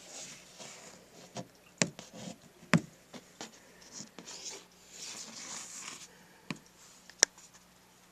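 Close handling noise from a finger rubbing along a cracked painted wall and from the camera being handled: soft rubbing in two stretches, with scattered sharp clicks, the loudest a little under three seconds in and another near the end.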